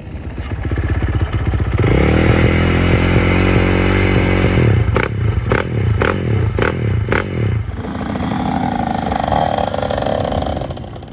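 Motocross dirt bike engine running loud and close, coming up strongly about two seconds in. A quick run of about six sharp cracks follows in the middle, then the engine settles lower and cuts off near the end.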